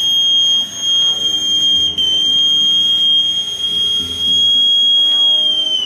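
Boatswain's call piped into the ship's broadcast handset: one long, steady, high whistle note that lifts slightly in pitch just before it cuts off near the end.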